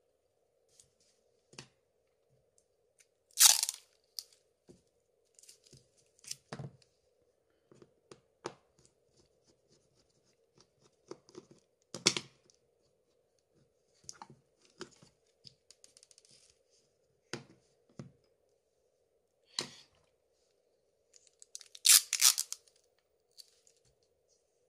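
Hands working on an opened Samsung Galaxy S3 smartphone: scattered small clicks and taps of tools and parts, with two louder rasping sounds of about half a second, a few seconds in and near the end. A faint steady hum runs underneath.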